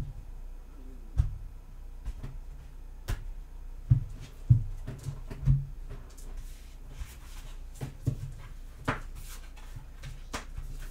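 Tarot cards being handled on a table: the deck shuffled and tapped, and cards laid down on a woven mat, giving irregular soft knocks and taps, the louder ones in the first six seconds.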